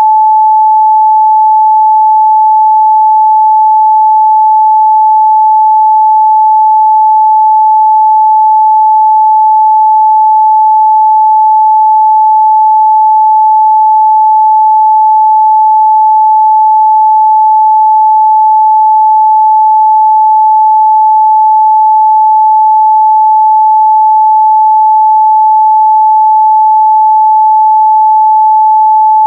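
A pure 867 Hz sine-wave test tone, held steady at one pitch and one loudness with no breaks.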